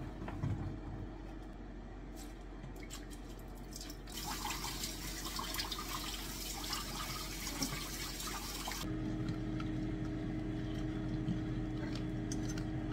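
Kitchen tap running water over strawberries being rinsed, starting about four seconds in and cutting off sharply near nine seconds. A steady low hum follows: the air fryer running.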